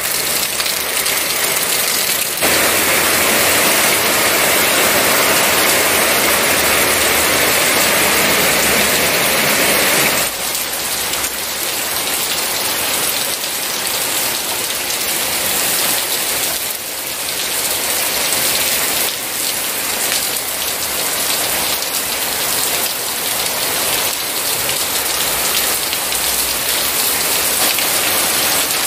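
Heavy rain falling steadily, with water streaming off the roof edges and splashing onto wet paving. The rush is louder and denser from about two seconds in until about ten seconds in, then a little softer.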